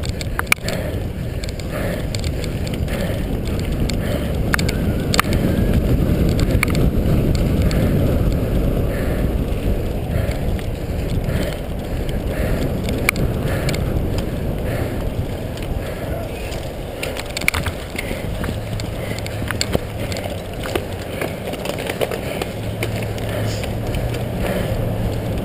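Cyclocross bike ridden fast over bumpy grass and leaves: steady rumble of tyres and wind, with the chain and frame rattling and clicking over the bumps.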